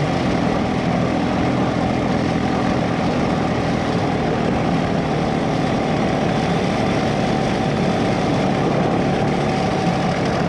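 Twin-engine go kart's two small Honda-clone single-cylinder engines running steadily under load as the kart drives along a dirt trail.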